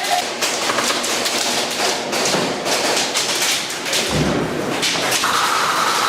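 Rapid clicks and cracks of airsoft gunfire and BBs striking hard surfaces, with a heavy thump about four seconds in.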